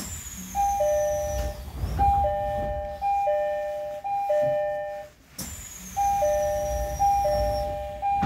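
Train door-closing chime: two notes, high then low, repeating about once a second with a short break partway. The sliding doors shut with a thud near the end.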